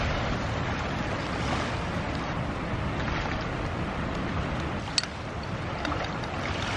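Steady noise of strong wind, about 20 to 25 miles an hour, blowing on the microphone, with one light click about five seconds in.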